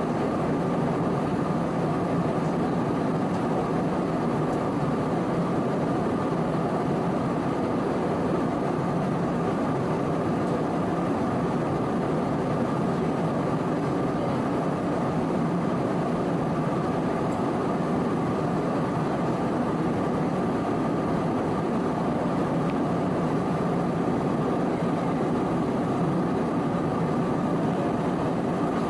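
Airbus A320-216 cabin noise at cruise: a steady, even rush of airflow over the fuselage mixed with the drone of its CFM56 engines, unchanging throughout.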